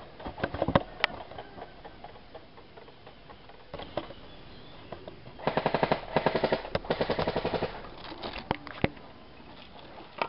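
Airsoft guns firing: a few single shots early on, then a rapid full-auto rattle lasting about two seconds midway through, followed by a couple more single shots.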